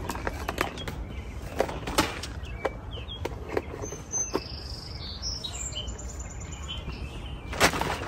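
Hard plastic parts of a bird feeder clicking and knocking a few times as it is handled and refilled, with a few short bird chirps behind. Near the end a plastic seed bag rustles loudly.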